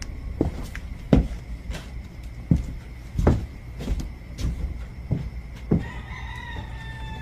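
A rooster crowing: one long, slightly falling call starting about six seconds in. Before it comes a string of irregular dull knocks, roughly one every half second to a second.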